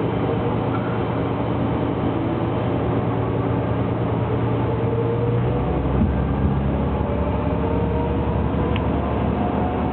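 Diesel railcar (Tarumi Railway Haimo 295-617) running and pulling away from a station, heard from the driver's cab. Its low steady drone changes about halfway through, and a whine climbs slowly in pitch as it gathers speed.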